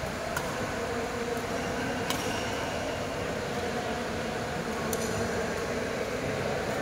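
Badminton rackets striking a shuttlecock during a rally: three sharp hits a couple of seconds apart, over steady background noise.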